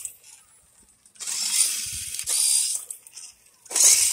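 WPL C24-1 RC truck's small electric motor and two-speed gearbox whirring in low gear in three short bursts of throttle, with a ratcheting gear noise. The last burst, near the end, is the loudest.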